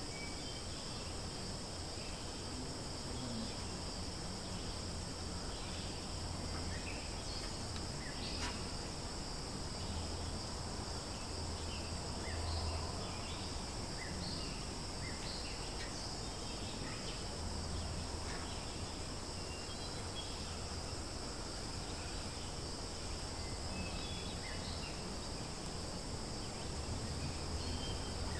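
Steady drone of insects in two high bands, with scattered short high chirps and a low rumble that comes and goes underneath.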